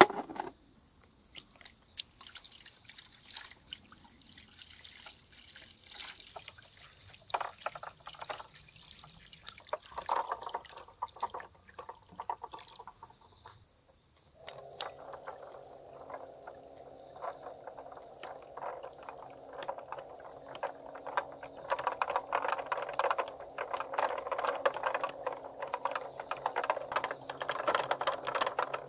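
A small electric water-pump unit being handled in a basin of water, with knocks and light splashes; about halfway through it is switched on and runs with a steady hum while water pours and splashes, growing louder.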